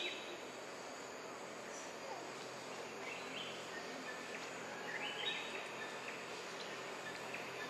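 Forest ambience: a steady hiss of insects, with a bird's short call that climbs in pitch in little steps, heard three times, about three and five seconds in and near the end.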